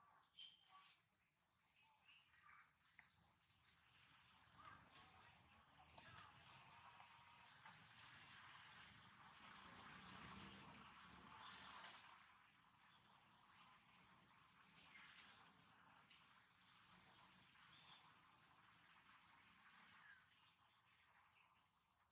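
Faint insect chirping: a steady, even train of high-pitched pulses, about four a second, with a soft rustle through the middle.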